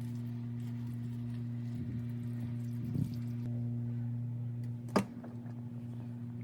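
Steady low mechanical hum, with a soft knock about three seconds in and a sharp click about five seconds in.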